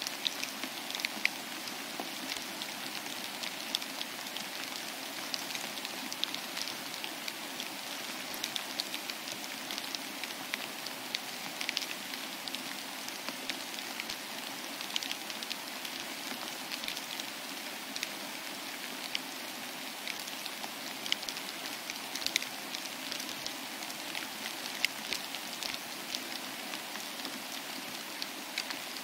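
Steady patter of precipitation on a corrugated metal culvert den: an even hiss scattered with many small ticks.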